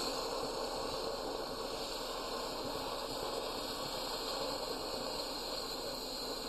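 Gas cutting torch cutting through a steel pipe wall, with a steady hiss from its flame and cutting-oxygen jet.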